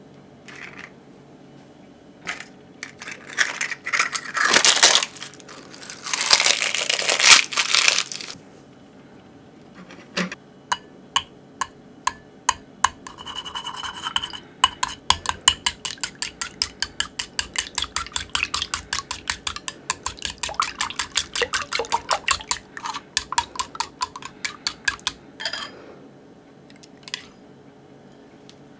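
Cooking chopsticks beating eggs in a glass bowl, clicking rapidly against the glass at about four to five strokes a second for around fifteen seconds. It starts after a few loud rustling, scraping noises near the beginning.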